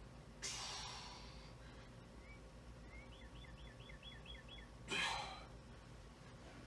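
A man breathing out heavily while flexing in a bodybuilding pose: a long exhale about half a second in, and a sharper, louder one about five seconds in. Between them comes a faint quick run of about seven high chirps.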